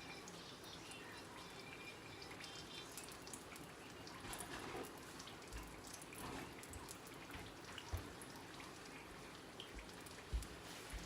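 Fried tacos cooking in hot oil in a frying pan: a steady sizzle with fine crackling. Two dull knocks come in the second half.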